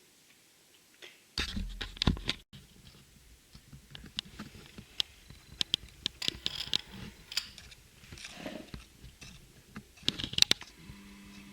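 Hands handling plastic packaging and parts: irregular clicks, crinkles and rustles, with a brief low thud and rustle a second or so in that cuts off abruptly.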